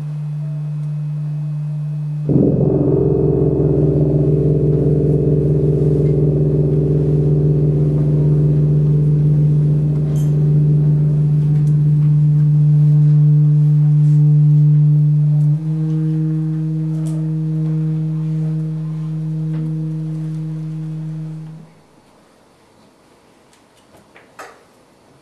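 Experimental improvised ensemble music: a loud, steady low drone with higher sustained tones layered over it, entering abruptly a couple of seconds in. The tones shift pitch about two-thirds of the way through and then cut off sharply near the end, leaving only a few faint clicks.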